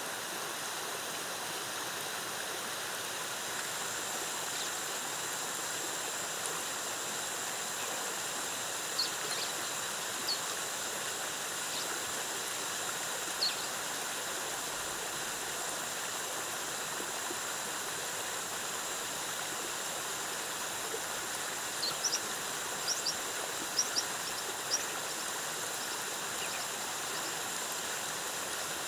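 Waterfall water cascading in a steady, even rush. A thin, steady high whine joins a few seconds in, and scattered short high chirps come now and then, with a small cluster of them near the end.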